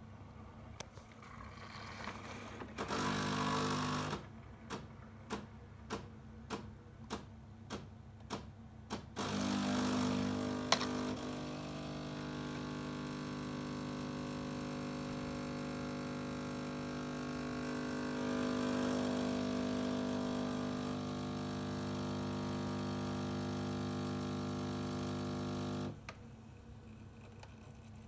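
Siemens EQ3 s300 fully automatic coffee machine running its espresso cycle: a short burst of motor noise, a run of regular clicks about twice a second, then a steady pump hum for about fifteen seconds while espresso pours, which cuts off suddenly near the end.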